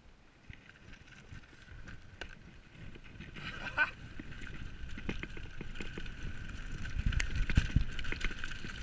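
Mountain bike rolling down a loose dirt-and-gravel trail and picking up speed: tyre rumble, rattling over bumps and wind on the microphone grow steadily louder, with a sharp knock a little under four seconds in.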